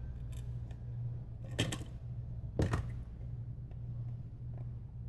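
Adhesive tape strips being handled and pressed onto a phone frame: two short rustling crackles, about one and a half and two and a half seconds in, with a few faint clicks, over a steady low electrical hum.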